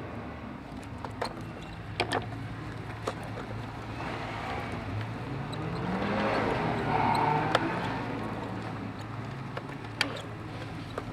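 BMW 116i petrol engine running with a steady low hum, revved up once about halfway through and then easing back, with a few sharp clicks. This is the noise that is traced to a faulty rocker (valve) cover.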